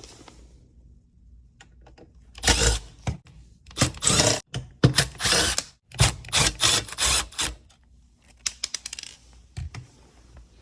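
Cordless drill-driver backing out the screws of a dishwasher's support bracket in several short runs, followed by a few light clicks.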